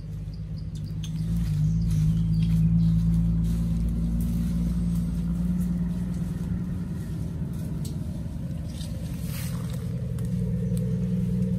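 A steady low droning rumble, like a running engine, that swells about two seconds in and again near the end.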